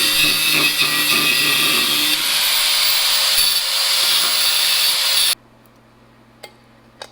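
A power tool running steadily at a loud, harsh pitch, cutting off suddenly about five seconds in.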